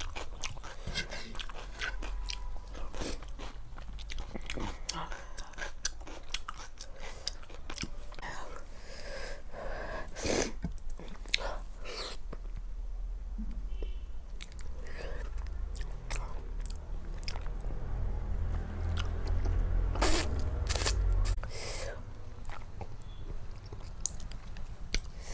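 Close-miked eating: chewing and biting food, a steady run of short wet clicks with some crunches. There are louder sharp sounds about ten seconds in and again around twenty seconds in.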